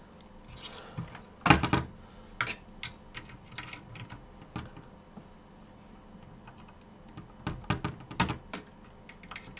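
Irregular small clicks and taps of metal tools and fingers against a circuit board and rubber work mat. A louder cluster comes about one and a half seconds in, and another near the end.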